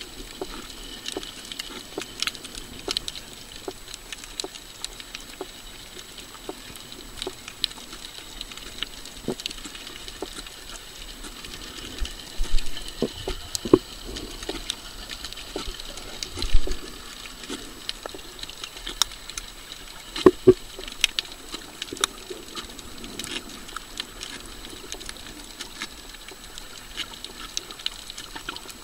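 Underwater coral-reef ambience: a steady crackle of dense, irregular clicks and pops over a faint hiss, with a few louder knocks near the middle.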